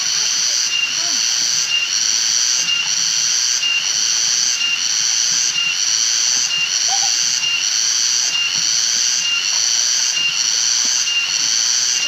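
A loud, high-pitched buzz that pulses evenly about one and a half times a second, over the rushing of a shallow stream running over rocks.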